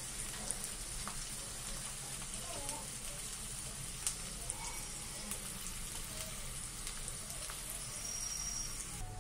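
Chopped onions and cumin seeds sizzling in hot oil in a steel kadhai: a steady frying hiss with scattered small crackles.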